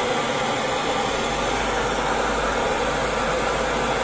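Handheld gas-cartridge blowtorch burning steadily with an even hiss while its flame heats a pipe end.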